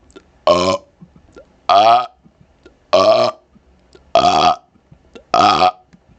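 A man burping five times in a row, about one burp every second and a quarter, each short and pitched, right up close to a laptop's microphone.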